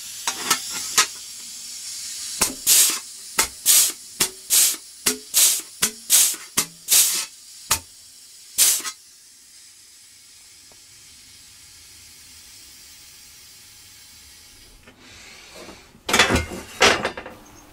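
Clarke pneumatic air flanger firing in quick, uneven succession, a short sharp hiss of exhaust air with each stroke, about fifteen strokes in nine seconds. It is stepping the edge of a sheet-steel Mamod SE3 engine base so a second base can sit flush on it. A few more sharp sounds come near the end.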